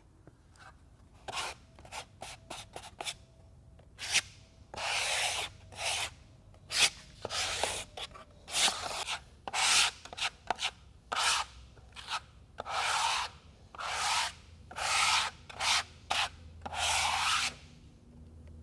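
Notched trowel spreading pressure-sensitive flooring adhesive across the floor: a run of rasping scraping strokes, a few short ones at first, then longer sweeps of about half a second to a second each, roughly one a second.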